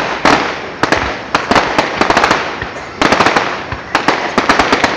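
Aerial firework shells bursting: many sharp bangs in quick succession, several packed into rapid crackling clusters, with a rolling rumble between them.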